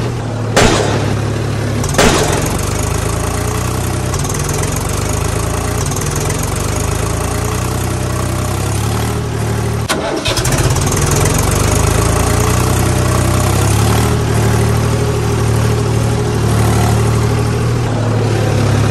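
Tractor engine running steadily at idle, with a few sharp clicks in the first two seconds and a brief break about ten seconds in.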